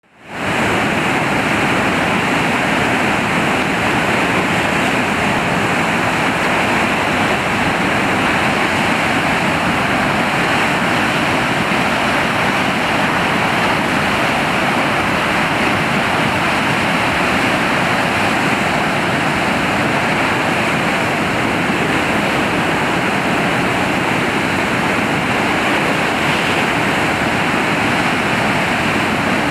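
Swollen river in flood rushing over rock ledges in small falls and rapids: a loud, steady roar of whitewater, fading in at the very start.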